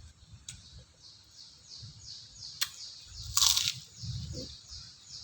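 A bird chirps in the background in a quick, even series of short high notes, about three a second. A sharp click comes about two and a half seconds in, and a brief loud crunch a second later, from biting into a krupuk cracker.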